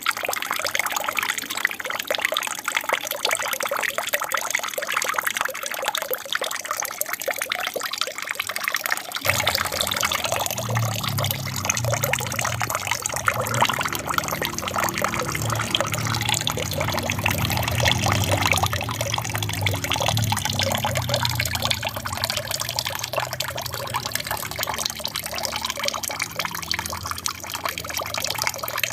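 Water from a small aquarium waterfall trickling and splashing steadily. From about nine seconds in, a deeper low rumble joins the splashing.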